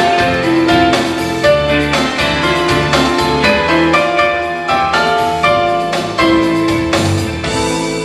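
Live band playing the instrumental ending of a pop song: keyboard piano melody over electric guitar and a steady beat, with no singing.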